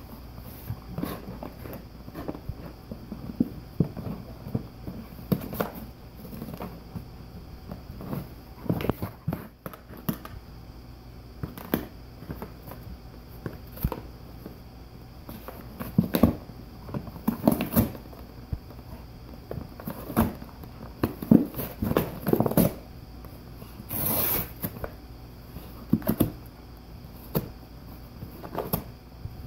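Golden retriever chewing and tearing a cardboard cereal box: irregular crunching, crinkling and ripping of the cardboard, coming in bouts that are loudest a little past halfway.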